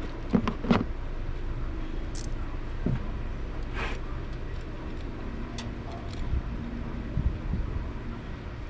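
A few sharp clinks and knocks of hand tools and metal parts being handled, the loudest two close together just under a second in, with a short rattling scrape near the middle, over a steady low hum.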